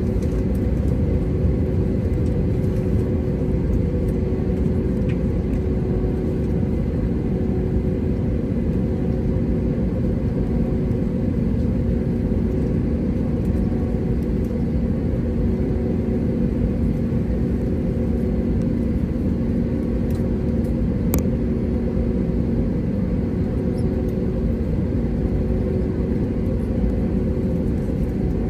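Cabin noise inside an Airbus A320neo: a steady low rumble of the engines and airflow with a constant hum, unchanging throughout. A single short click about two-thirds of the way through.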